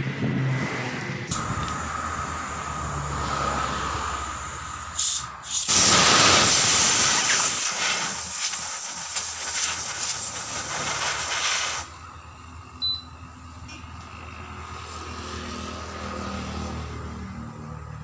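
Compressed air hissing from a workshop air hose into a truck tyre through its valve stem, loudest for several seconds in the middle and cutting off suddenly about two-thirds through, leaving a faint background hum.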